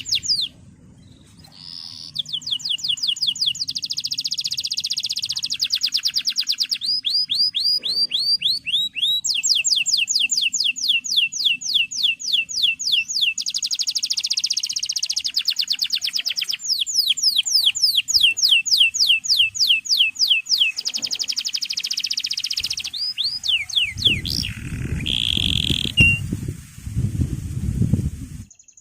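Male domestic canary singing fast rolling trills of rapid, evenly repeated falling notes, in long runs broken by short pauses. Near the end a loud low rumbling noise comes in under the song.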